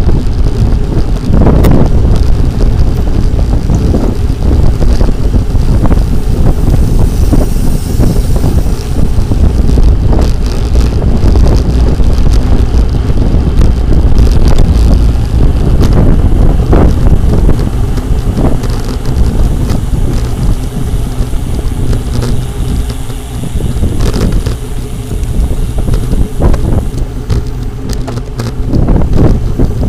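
Heavy wind buffeting on the microphone of a bicycle in motion, with road noise and scattered short knocks.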